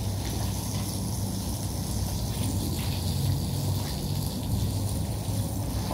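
Water from a garden hose splashing steadily onto a wet carpet, a continuous hiss, over a steady low rumble.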